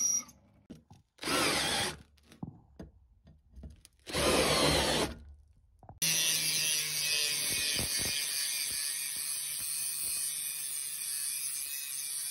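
Two short bursts of a drill press boring into a steel blade, then an angle grinder runs steadily, its disc grinding the edge of a leaf-spring steel blade.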